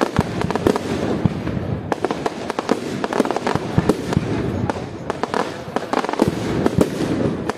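Aerial fireworks display: many shell bursts in quick, irregular succession, a dense string of bangs and crackles over a continuous rumble.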